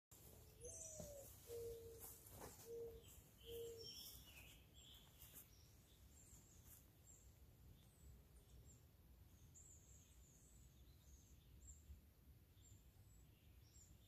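Faint birdsong: a low four-note cooing call in the first few seconds, the first note rising and falling and the other three level, over scattered high chirps of small birds.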